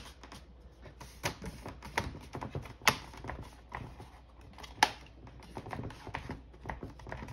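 Plastic palm-rest cover of a Lenovo ThinkPad P52 laptop being pressed down around its edges, its clips snapping into place in an irregular string of clicks, a few of them much louder.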